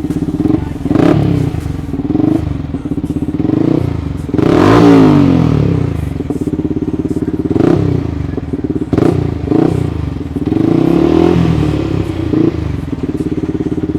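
Mini dirt bike's small single-cylinder engine running, revved up and down again and again, the pitch rising and falling with the throttle. It runs strongly on a freshly repaired carburetor.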